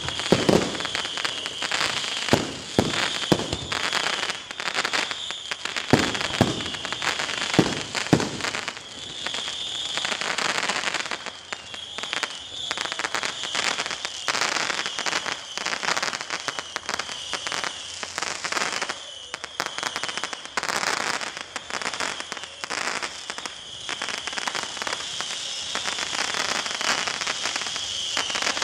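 Fireworks display going off: frequent sharp bangs through the first several seconds, then a dense, continuous crackling with only occasional bigger bangs.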